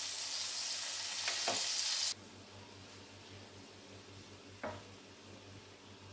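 Battered green beans frying in hot olive oil in a frying pan: a steady sizzle, with a few short clicks of metal tongs against the pan. The loud sizzle cuts off abruptly about two seconds in, leaving a much fainter sizzle.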